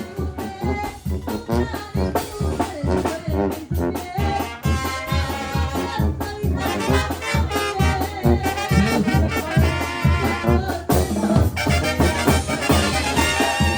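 Banda music with trumpets and trombones over a steady low beat from bass and drums.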